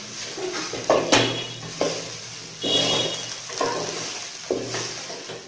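A wooden spatula stirring and scraping okra frying in an aluminium pot, a stroke about once a second, over the steady sizzle of the oil.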